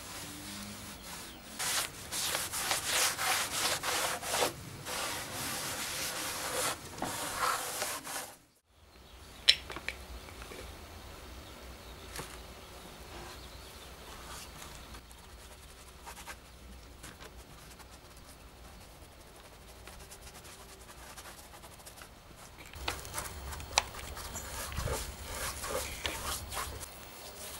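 Cloth rubbed hard back and forth over the bare wood of an old hand-carved trough, in uneven strokes. About eight seconds in it cuts off, and quieter bristle-brush strokes on the wood follow, with a few light ticks; the brushing grows busier near the end.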